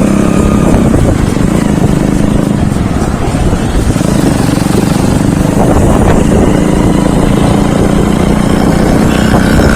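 Steady, loud engine and road noise of motor traffic, as heard while travelling on a road.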